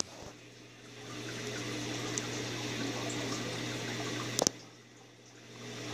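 Saltwater reef aquarium's water circulation: a steady rush of moving water with a constant low pump hum. It dips quieter twice, and there is a short click about four and a half seconds in.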